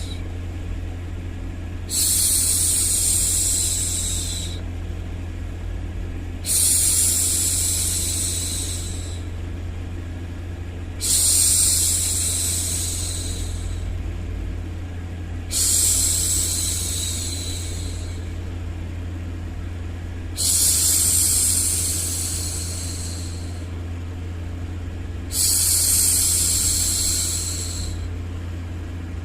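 A woman shushing the long 'shhh' used to hush a baby: six long strokes, each starting sharply and fading out, about every four and a half seconds. Under them runs a steady, low white-noise rumble.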